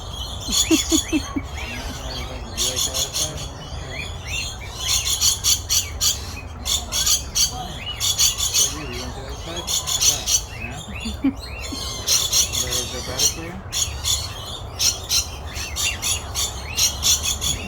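Many small aviary birds chirping and squawking together in rapid clusters of high, quick calls, over a steady low rumble.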